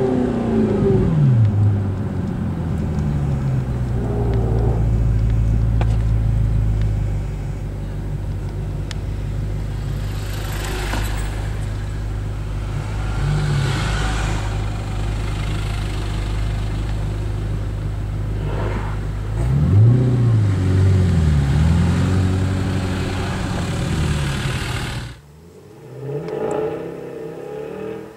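Audi R8 with an Armytrix F1 exhaust heard from inside the cabin: the revs fall away in the first second or so, then the engine runs steadily at low revs for a long stretch. About twenty seconds in it is blipped up and down several times, then the sound cuts off abruptly, and fainter revving follows.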